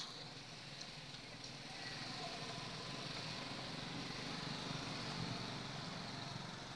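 Low engine rumble, likely a passing motor vehicle, swelling after about two seconds and fading near the end, over a steady high hiss.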